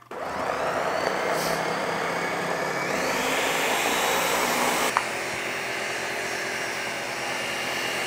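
Countertop blender switched on and running, puréeing Santarém beans with olive oil, onion and garlic into hummus. The motor spins up at the start, its pitch climbs about three seconds in, and after a click about five seconds in it runs on slightly quieter and steady.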